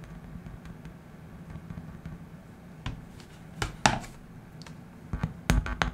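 Test speaker driven by a subwoofer power amplifier module, holding a steady low hum and then popping and thumping irregularly as fingers touch the chip amplifier's circuit and cause DC offsets. A few single clicks come about halfway through, and a quick run of pops comes near the end.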